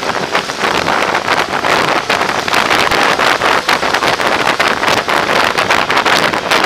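Wind noise buffeting the microphone of a camera mounted on a moving motorcycle, a loud rushing hiss that flickers rapidly in loudness.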